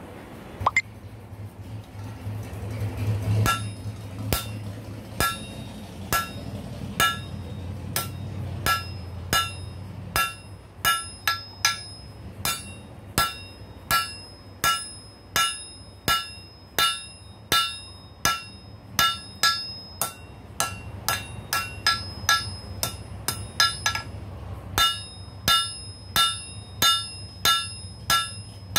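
Hand hammer forging a red-hot rail spike on an anvil. The blows come in a steady run of a little more than one a second, and each one sets the anvil ringing. The hammering starts a few seconds in and pauses briefly once near the end.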